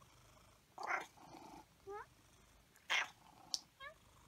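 Tabby cat making a string of short vocalizations: brief grumbling calls about a second and three seconds in, and short rising chirps near two and four seconds, with a quick high tick in between.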